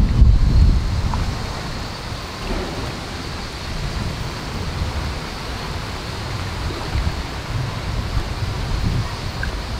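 Wind buffeting the microphone in gusts, strongest at the start and again near the end, over a steady outdoor hiss.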